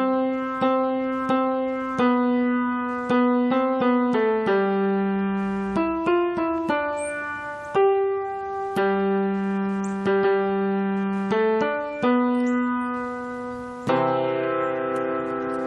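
Electronic keyboard notes struck by bouncing juggling balls, playing a short melody one note at a time with sharp attacks. Quick runs of short notes come about four and six seconds in. Near the end several notes sound together.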